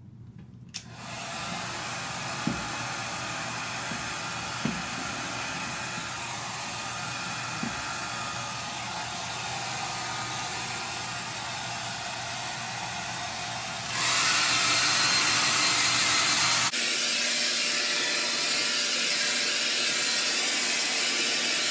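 Revlon hand-held hair dryer starts just under a second in and blows steadily, with a few short knocks in the first eight seconds. About fourteen seconds in it gets louder, and a couple of seconds later its low hum drops out while the blowing goes on.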